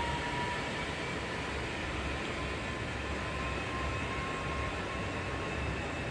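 Steady outdoor background rumble, with a faint thin high tone running through it.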